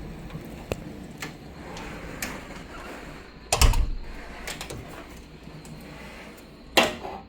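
Scattered sharp clicks and knocks over a faint hiss, two of them much louder thumps, one about halfway through and one near the end.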